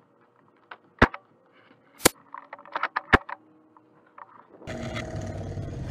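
Airsoft gunfire: three sharp cracks about a second apart, the middle one loudest, with a few lighter clicks before the last. About four and a half seconds in, a louder steady rustling noise takes over.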